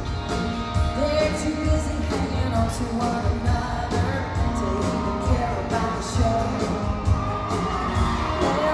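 Live country band playing in an arena with a woman singing lead into a handheld microphone, over a steady drum beat.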